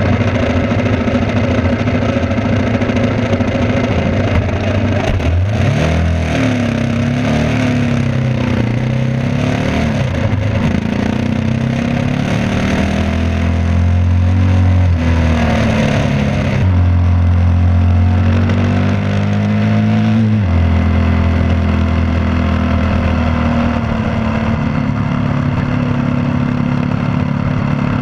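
Yamaha WR250R's single-cylinder four-stroke engine running under way, its pitch climbing and falling with the throttle and dropping sharply a few times at shifts. Wind noise and rattle come through the handlebar-mounted camera.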